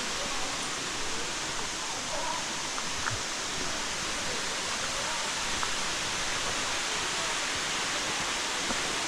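Steady, even rushing roar of Lower South Falls, a large waterfall pouring down into its pool.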